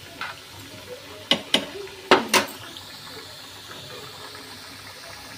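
Boiled potatoes deep-frying in hot oil in a steel kadai: a steady bubbling sizzle. A few sharp metallic knocks come between about one and two and a half seconds in, as the stirring spoon strikes the pan.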